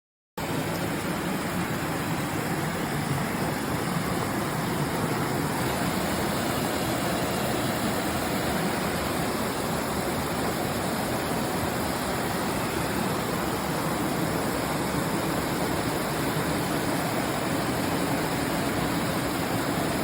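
Waterfall on a mountain stream: a steady, loud rush of falling water, cutting in abruptly a moment in and holding evenly.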